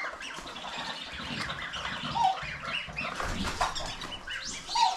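A flock of mixed farmyard birds, poultry and ducks, calling at once: many short chirps and squawks overlapping, with a louder call about two seconds in and another near the end.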